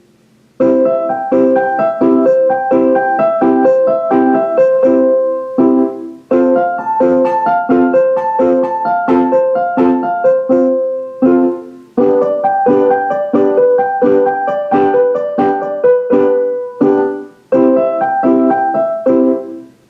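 Keyboard set to a piano sound playing block chords, struck over and over about twice a second in phrases with short breaks between them. These are the three primary chords of C major, C, F and G, played for children to memorise.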